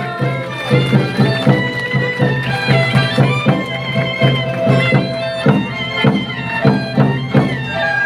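Traditional Taiwanese opera accompaniment: a reedy wind instrument plays a melody over percussion strikes, about two or three a second.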